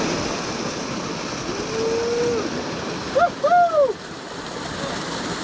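Steady rush of water flowing over the rock at the top of a waterfall. A person's drawn-out call comes about two seconds in, then two shorter, louder shouted calls a second later.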